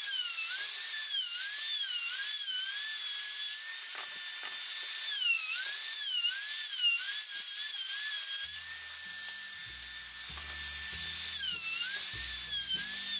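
Handheld wood router shaping a wooden wagon spoke held in a jig: a high motor whine that dips in pitch again and again as the bit bites into the wood and recovers as the load eases, over the hiss of the cut. Music with a bass line comes in about two-thirds of the way through.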